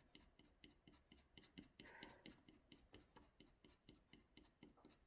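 Faint, quick scratching strokes of a scratch tool scraping the ink off an Ampersand scratchboard, several short strokes a second.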